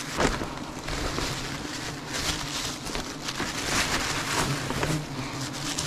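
Honey bees buzzing steadily in a swarm around the exposed comb, with a few bees passing close, their pitch dropping as they go by. Leaves and branches rustle as they are handled.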